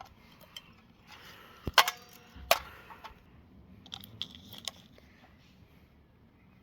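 Hard plastic clicks and knocks from handling a toy remote-control car controller and its batteries while trying to fit them into the battery compartment. The sharpest knocks come about two seconds in and again half a second later, with lighter clicks near the middle.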